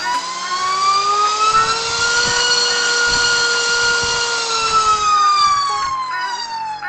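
Diatone TOKA 2207.5 2650KV brushless motor spinning a 5-inch three-blade propeller on a thrust stand through a full-throttle ramp. It makes a loud whine that rises in pitch for about two seconds, holds at full throttle for about two more, then falls away as the throttle is brought back to zero.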